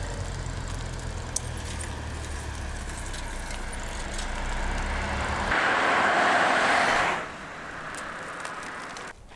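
Motor vehicle noise on a road: a steady low engine hum, then about five and a half seconds in a louder rushing noise for about a second and a half, dropping back to quieter road ambience.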